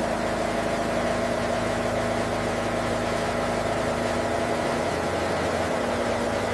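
Steady machinery drone: a constant hum of several fixed tones over an even hiss.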